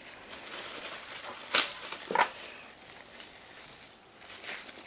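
Eating sounds: chewing and wet mouth clicks, with two sharp smacks a little past the middle, about half a second apart.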